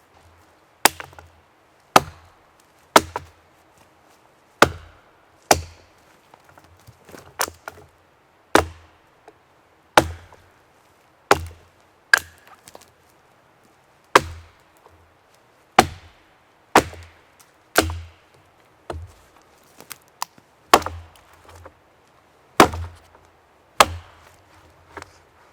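Wood being chopped with a blade tool, a run of sharp strokes at about one a second.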